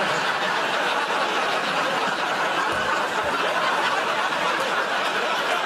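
Studio audience laughing, a continuous dense wash of laughter that holds at one level.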